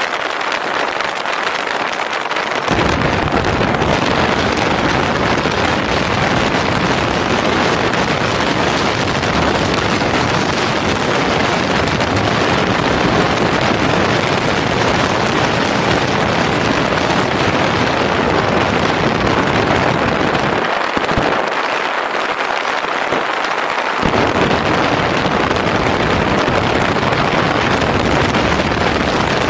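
Motorcycle riding along an open road, heard as a loud, steady rush of wind over the camera microphone with the engine buried underneath. The low rumble drops away at the start and again for a few seconds about two-thirds of the way through.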